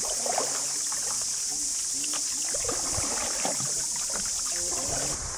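Canoe paddling on a calm river: the paddle dipping and water splashing against the boat, over a steady high-pitched hiss that drops away near the end.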